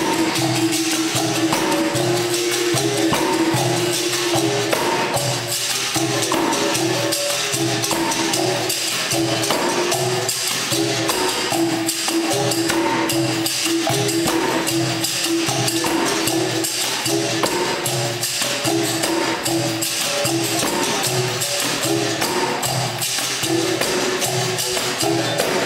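Capoeira Angola bateria playing: berimbaus twanging their changing notes over pandeiros and an atabaque drum, in a steady, evenly repeating rhythm.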